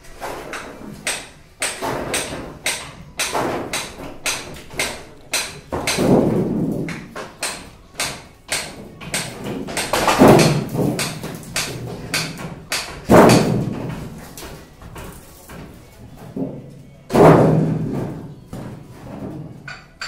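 Wooden shuttering (concrete formwork) being knocked loose from a concrete stair slab: a string of irregular knocks and bangs, with four louder thuds a few seconds apart that ring on for about a second.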